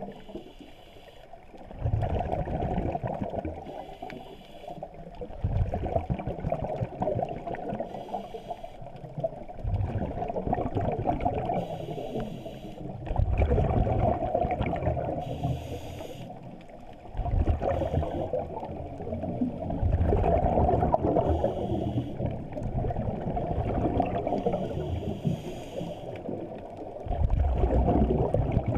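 Scuba diver breathing through a regulator underwater. Each breath is a short hiss on the inhale, then a longer gurgling rumble of exhaled bubbles, about one breath every four seconds.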